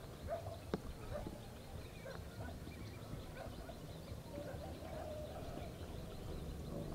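A flock of ducks calling, many short overlapping calls, with one sharp click about a second in.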